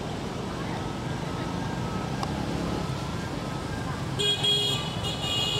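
Steady rumble of road traffic. About four seconds in, a high-pitched tone sounds in two parts for about a second and a half.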